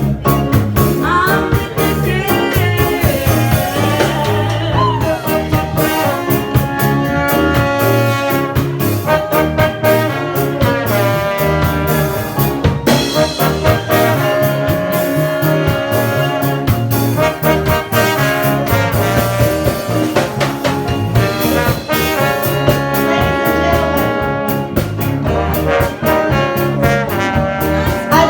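A live band playing an upbeat number, with held melody notes over a steady drum beat.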